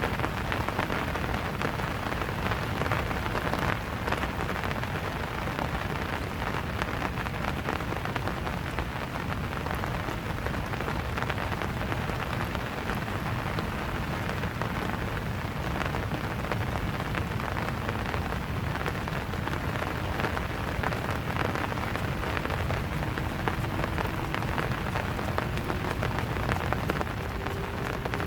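Steady rain falling: a dense, even patter of countless drops.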